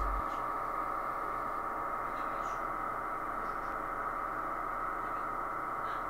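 A DMR digital radio signal received in FM mode on a Langstone SDR transceiver and played undecoded through its speaker, giving a steady, even digital hiss-like buzz.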